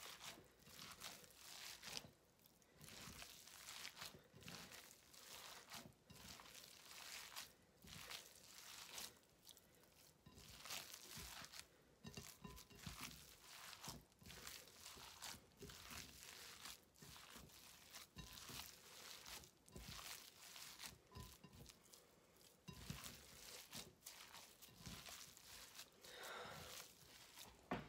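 Hands squishing and kneading raw ground moose burger mixture in a bowl: quiet, irregular squishing with no steady rhythm.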